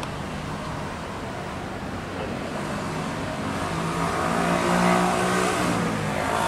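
A motor vehicle drives past close by: an engine hum and tyre noise swell to a peak about five seconds in, then ease off, over a steady background of traffic.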